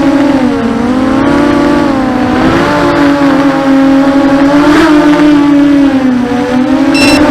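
250-size FPV racing quadcopter's motors and propellers whining, the pitch dipping and rising several times with throttle. A high electronic beep starts repeating near the end.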